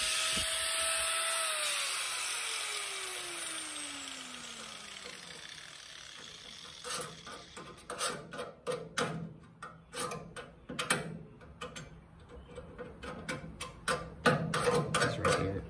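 Angle grinder running with a steady whine, then switched off about a second and a half in, its pitch falling as the wheel spins down over a few seconds. From about seven seconds in, a run of irregular sharp clicks and knocks, with the loudest near the end.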